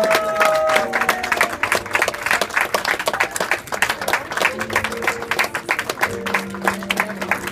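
Crowd of guests applauding, steady dense clapping throughout, with background music playing sustained notes underneath.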